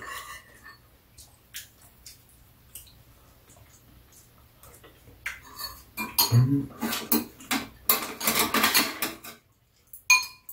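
Metal spoons and chopsticks clinking and scraping against ceramic bowls during a meal. The clinks are sparse at first, then come in a quick run from about six seconds in to about nine. Near the end one clink rings briefly.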